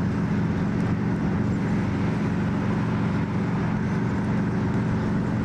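Steady engine and road noise heard from inside a car's cabin while driving, a constant low drone with no change in pace.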